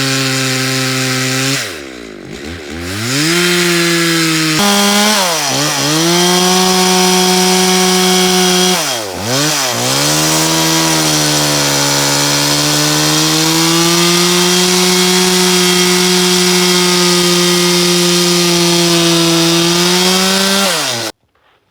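Chainsaw running under load as it rips lengthwise through a fir log on a homemade guide-rail milling jig. Its engine note drops sharply twice as it bogs in the cut and picks back up each time, then stops suddenly near the end.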